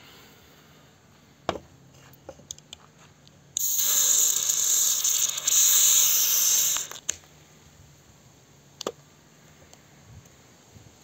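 A shaken can of Pepsi Max is cracked open and foam sprays out with a loud hiss. The hiss starts suddenly about three and a half seconds in and cuts off about three seconds later. A few sharp clicks and knocks come before and after it.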